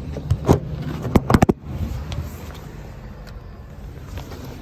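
A single knock, then a quick cluster of knocks and rattles about a second in, as someone climbs into a van's cab and handles the door. Under them runs the steady low hum of a vehicle engine idling.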